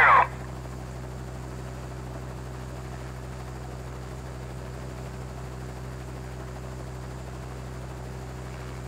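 Helicopter engine and rotor sound, a steady low hum that does not change.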